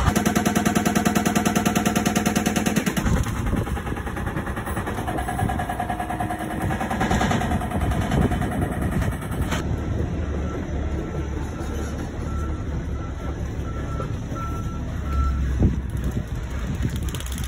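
An engine running, with a fast, even chugging for the first three seconds that gives way to rougher, irregular machine noise.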